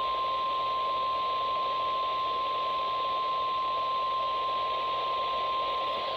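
NOAA Weather Radio 1050 Hz warning alarm tone: a single steady high beep held unbroken over radio hiss. It is the signal that a warning is about to be read, here a severe thunderstorm warning.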